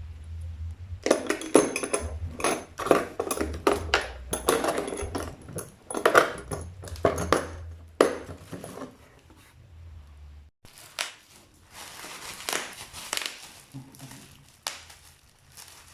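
Packaging being unwrapped and handled, crinkling and rustling with many sharp clicks, busiest in the first half and thinning out later.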